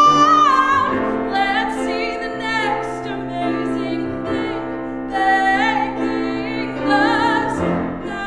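A woman singing a musical-theatre song to grand piano accompaniment. She holds a long high note that ends about a second in, then sings shorter phrases with vibrato over the piano.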